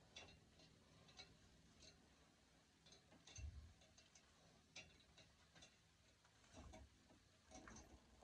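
Faint, irregular little clicks and ticks as a raccoon hide is worked and pulled down off the carcass by gloved hands, with a soft low thump about three and a half seconds in.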